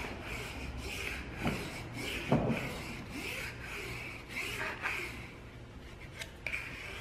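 Plastic squeegee rubbing over perforated vinyl window film on glass, in repeated scraping strokes as the film is pressed down. Two brief knocks come about one and a half and two and a half seconds in.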